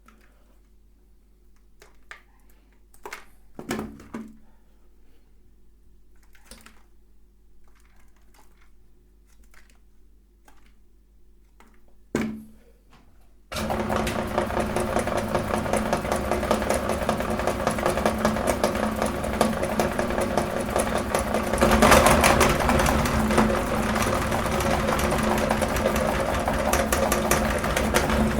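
A few scattered clicks and knocks, then about halfway through a meat grinder's motor starts suddenly and runs steadily as it grinds soap, getting a little louder a few seconds later.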